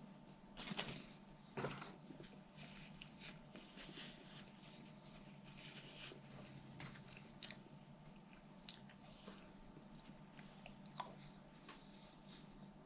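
A man chewing and crunching crispy fried chicken nuggets. There are two louder crunches in the first two seconds, then softer crackling chews.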